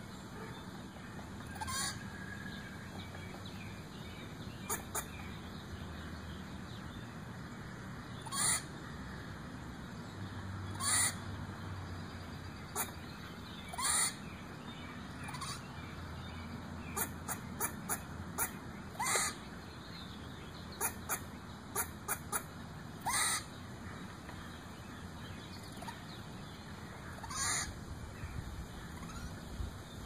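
A squirrel making short, chicken-like barking calls, each dropping quickly in pitch. They come singly or in quick runs of three or four, a second or a few seconds apart. Such barking is the squirrel's alarm call.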